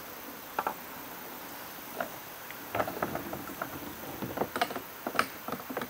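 Tall reeds and grass rustling and scraping against a plastic kayak hull as the bow pushes into them. A scatter of irregular crackles and scrapes, sparse at first and busier from about three seconds in, over a steady faint hiss.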